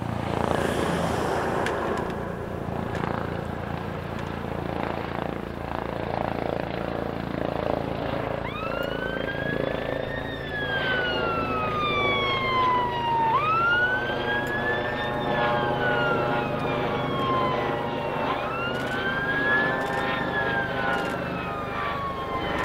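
Emergency vehicle siren wailing in slow cycles, each rising briefly and then falling away, starting about a third of the way in and repeating about every five seconds. Underneath is a steady mechanical rumble from vehicles.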